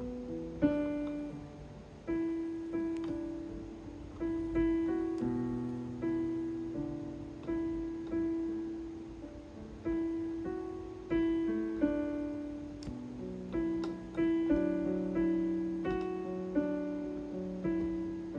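Casio CT-S1 portable keyboard played with a piano tone: a slow, gentle line of single notes and chords, struck about once a second, each fading away after it is struck.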